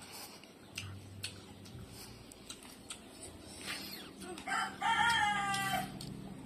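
A rooster crowing once, about two thirds of the way in: a short note, then one long, nearly level note that drops slightly as it ends. A few faint clicks come before it.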